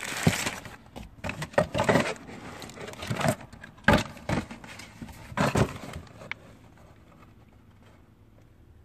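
Handling noises from a new cabin air filter and its plastic wrapping: irregular rustling, crinkling and scraping with a few sharp knocks, for about six seconds, then quiet.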